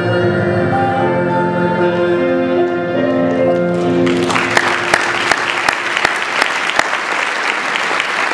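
The close of a song, its accompaniment holding long notes that change pitch a few times. About four seconds in, the audience breaks into applause.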